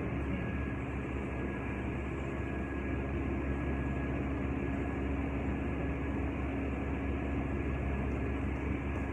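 Steady hum and rushing air of a large cooling fan running.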